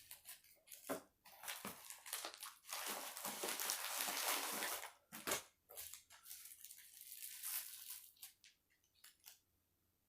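Packaging being crinkled and torn open by hand, with a long stretch of rustling and a few sharp clicks near the end.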